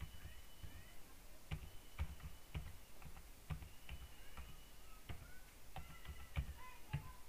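Computer keyboard being typed on: faint, irregular keystroke clicks at an uneven typing pace.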